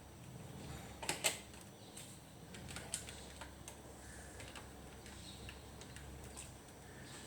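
Scattered light clicks and taps from handling an electrical plug and its small parts, with the loudest couple of clicks about a second in.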